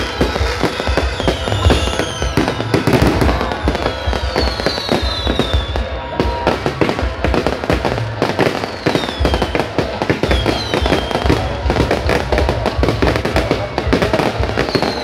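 Aerial fireworks going off in a steady barrage of bangs and rapid crackling, with several falling whistles every few seconds. Music plays underneath.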